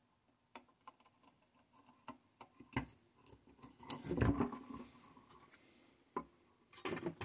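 Light clicks and taps of fingers handling a refrigerator control circuit board, with a louder scrape and knock about four seconds in as the board is tipped and turned over.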